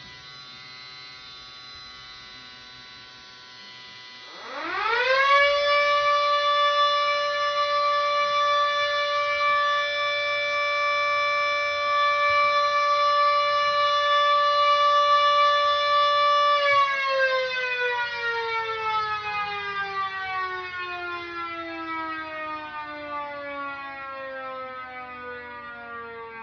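Miniature rotating civil-defense-style siren sounding one short alert. It winds up in a quick rising sweep about four and a half seconds in, holds a loud steady tone for about twelve seconds, then winds down with a long falling glide. Before the wind-up a fainter siren tone is already sounding.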